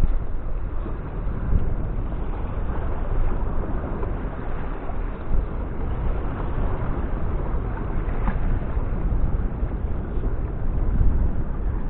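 Strong wind buffeting the camera's microphone, a steady, uneven low rumble.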